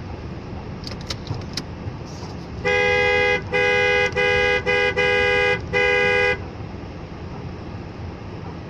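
Two-tone car horn honked six times in quick succession, the blasts of uneven length, one very short.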